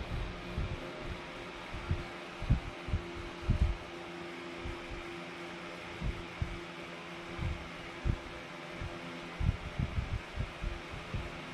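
Scattered low, dull thumps, loudest about two and a half to three and a half seconds in and again in a cluster near the end, over a steady hum with a faint fixed tone.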